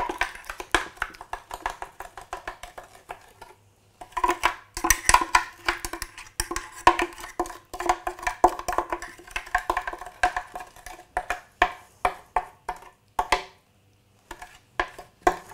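A utensil scraping and knocking inside a plastic Optimum 9200 blender jug as thick paste is scooped out of it: quick runs of sharp taps and scrapes that ring through the jug, pausing briefly about three and a half seconds in and again near the end.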